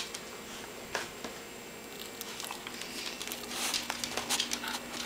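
A small dog's claws clicking and pattering on a hardwood floor as it moves about, in scattered light taps that grow busier about three and a half seconds in, over a faint steady hum.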